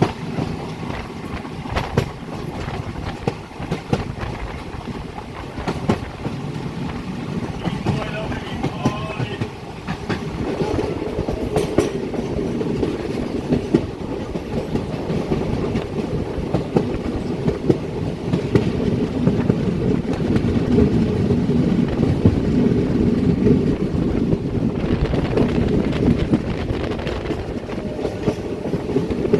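Passenger train running along the track, a steady rumble with many short wheel knocks over the rails. It gets louder about ten seconds in.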